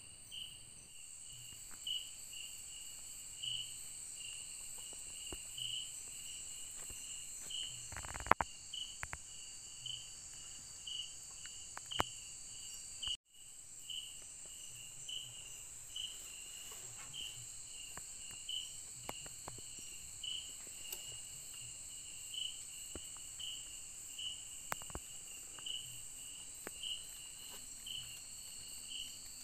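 Night-time tropical forest insects: a steady high-pitched drone of several insects with a cricket chirping steadily, just under twice a second. A few sharp clicks or knocks sound over it, the loudest about 8 seconds in, and the sound drops out briefly about 13 seconds in.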